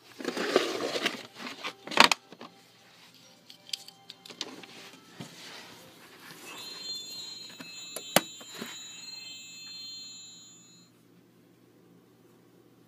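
Rustling and knocking of plastic toy pieces being handled, with a sharp knock about two seconds in and another near eight seconds. A high, steady tone made of several pitches sounds from about the middle until near the end.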